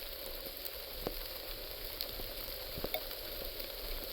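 Rain falling on the woods: a steady hiss with scattered sharp ticks of drops.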